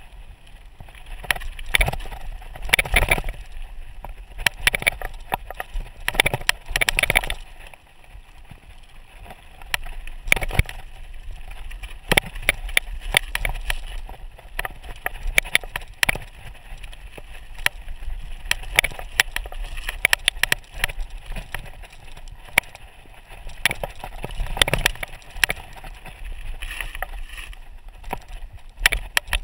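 Mountain bike rolling downhill over a loose rocky gravel trail: tyres running over gravel and stones, with frequent sharp clicks and knocks as the bike rattles over rocks, over a low rumble.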